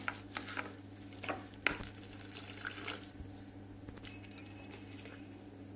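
A metal spoon stirring wet oat-and-yogurt batter in a glass bowl: quiet wet squelching with scattered light clicks and scrapes of the spoon against the glass, over a steady low hum.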